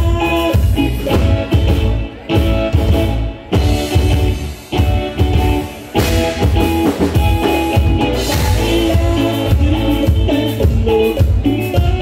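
Live norteño band music, melody instruments playing over a steady, pulsing bass beat.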